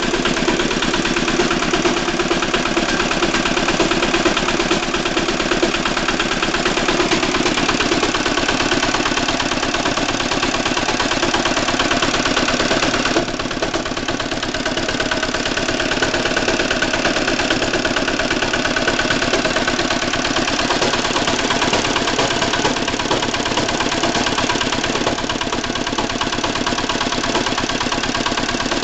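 Walk-behind tractor engine running steadily with a knock in it, the fault the owner is showing. About thirteen seconds in, it gets slightly quieter and changes tone.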